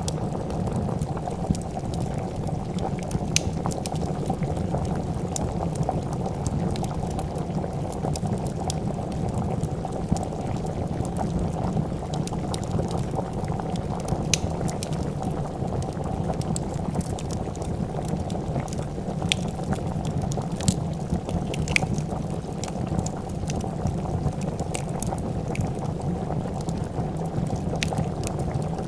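A pot of soup bubbling at a steady boil, with the sharp crackles and pops of a wood fire scattered throughout.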